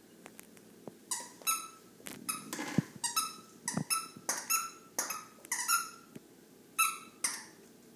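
Puppy chewing a squeaky toy: the toy squeaks over and over, about a dozen short squeaks in quick, uneven succession, with a few faint clicks between.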